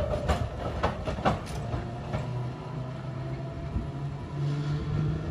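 A 1930 London Transport EMB/English Electric double-deck tram running away along the track: a few sharp clicks of the wheels on the rails in the first couple of seconds, then a low steady hum from the car that steps up in pitch near the end.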